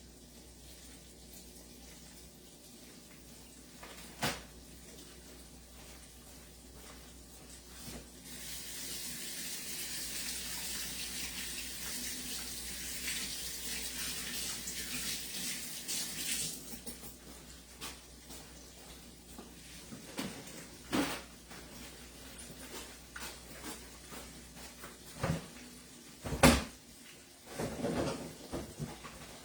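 Kitchen tap running for about eight seconds, starting and stopping sharply, followed by scattered knocks and clatter with one loud bang near the end.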